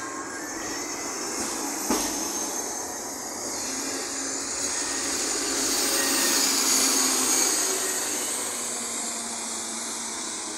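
City street traffic: a steady rushing noise of buses and cars going past, swelling around six seconds as a city bus passes close by. A single sharp knock comes about two seconds in.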